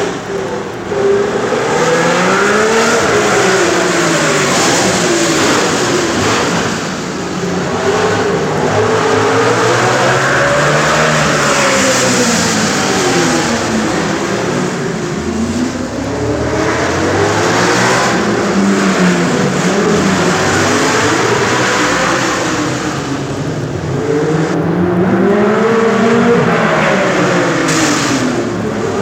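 1967 Formula One cars with V8 and V12 racing engines coming through the Station hairpin at Monaco one after another: engines falling in pitch as they brake and downshift, then rising as they accelerate away. Several cars overlap all the way through, echoing off the walls and buildings that line the circuit.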